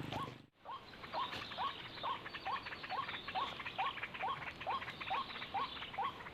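A short, squeaky rising call repeated evenly about twice a second, over a faint, dense high ticking. The sound drops out briefly about half a second in.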